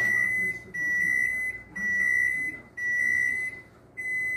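A kitchen appliance's electronic alert beeping: a steady high-pitched beep, each most of a second long, repeated about once a second, five times.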